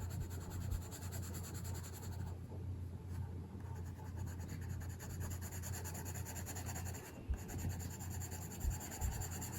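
Colored pencil scratching on paper in short strokes as a page is colored in, over a steady low hum, with a few faint taps near the end.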